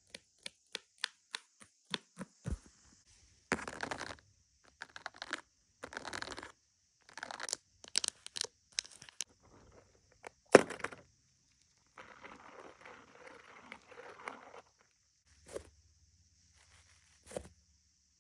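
Fidget board being played with: a run of quick clicks, then several short scratchy, tearing strokes, one sharp knock about ten seconds in, a longer stretch of rustling, and two last clicks near the end.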